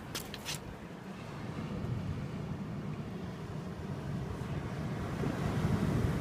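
Low rumble of wind on the microphone and surf at the tide pools, slowly growing louder, with a few light clicks just after the start.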